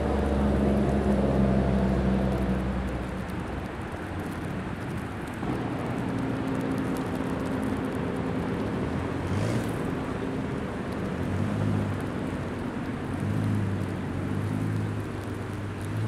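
Low engine hum of a motor vehicle over steady outdoor background noise. The hum is strongest for the first few seconds, fades, then returns about halfway through.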